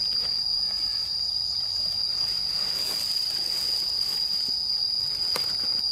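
Steady, high-pitched insect shrilling: one unbroken tone. A single sharp click comes near the end.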